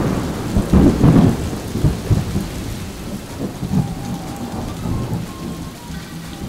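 Thunderstorm sound effect. A sudden crack of thunder at the start peaks about a second in and rolls into a long rumble that slowly fades, over steady rain. It is a recording laid onto the footage of a sunny day to fake a storm.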